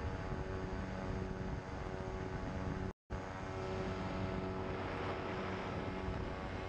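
Pterodactyl Ascender II ultralight's engine and pusher propeller droning steadily in flight, over an even rushing noise. The sound drops out completely for an instant about three seconds in.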